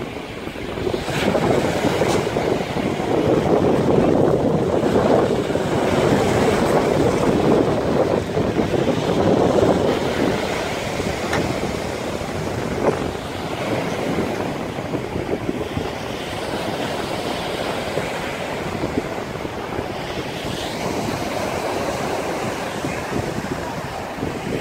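Wind buffeting the microphone over rushing sea water, a dense rumbling noise that is louder for the first ten seconds or so and then settles a little lower.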